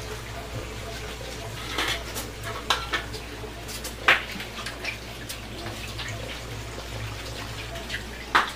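Kitchen sink sounds: faint running water under a steady low hum, with several sharp clinks and knocks of dishes or a bottle scattered through.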